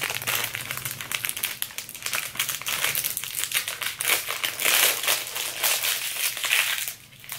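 Thin clear plastic wrapper crinkling and rustling as a large fan makeup brush is worked out of its sleeve. The sound stops shortly before the end.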